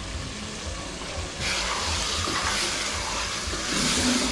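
Chicken pieces sizzling as they fry in a pot of onion and tomato; the hiss grows louder about a second and a half in.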